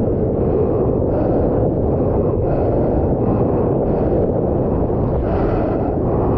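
Surfboard planing across a wave: a steady, loud low rush of water and wind buffeting the camera's microphone.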